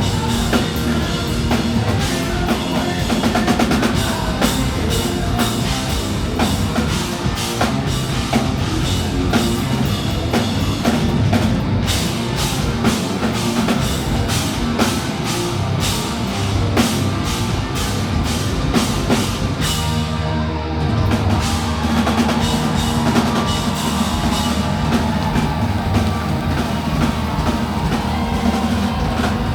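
Live rock band playing loudly, with electric guitars, bass and a heavy drum kit. About two thirds of the way through, the drums and cymbals drop out briefly, then the full band comes back in.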